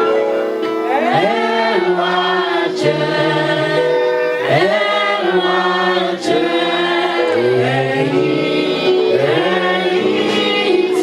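Several voices singing a Yoruba gospel chorus together in long held notes that slide between pitches.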